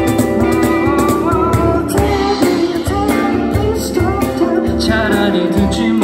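A live R&B/soul trio playing: a cajón beat under keyboard chords, with a voice singing a melody that comes in about a second in.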